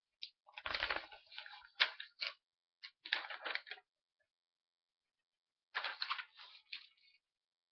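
A sheet of paper rustling and flapping close to the microphone in two bursts, the first lasting about three seconds with a soft bump near its start, the second starting around six seconds in.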